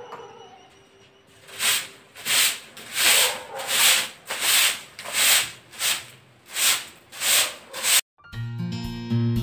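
Broom sweeping a concrete floor: about ten brisk strokes, roughly one every 0.7 seconds. They stop suddenly about eight seconds in and guitar music begins.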